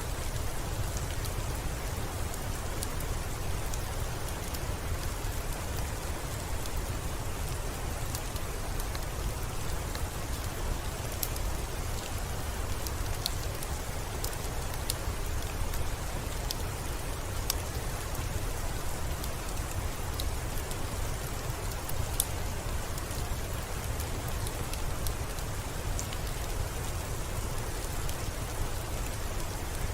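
Steady rain with a deep, even rumble underneath, and scattered sharp pops and ticks every second or so from a crackling wood fire.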